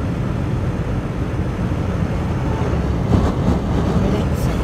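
Steady road and wind rumble inside a moving car's cabin, with a couple of short bumps about three seconds in.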